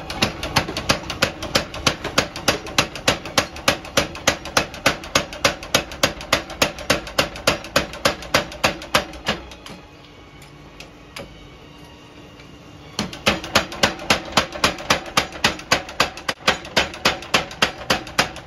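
45 kg forging power hammer pounding a red-hot cultivator shovel blade on its anvil, rapid even blows at about four a second. The blows stop for about three seconds midway, then start again.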